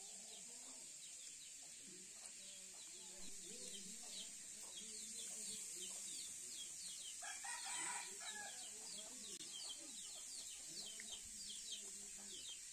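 Chickens clucking, with a rooster crowing once about seven seconds in, over a steady high hiss and rapid chirping.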